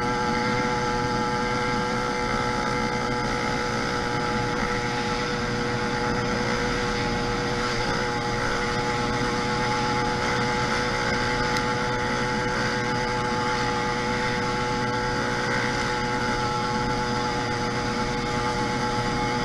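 YD100 two-stroke motorized-bicycle engine running at a steady speed, its pitch holding level throughout.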